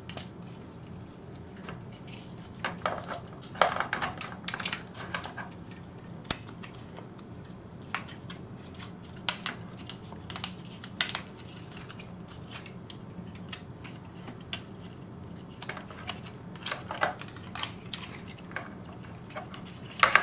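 Generation Toy GT-2 Tyrant transforming robot figure being handled and transformed: its parts click, snap and clatter at irregular intervals, with short clusters of clicks a few seconds in and again near the end.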